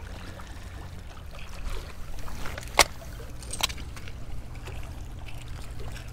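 Low rumbling wind noise on a body-worn camera microphone, with a faint steady hum from about two seconds in. Sharp clicks of oyster shells knocking as a gloved hand turns over shell-covered rocks: the loudest a little under three seconds in, a second one under a second later.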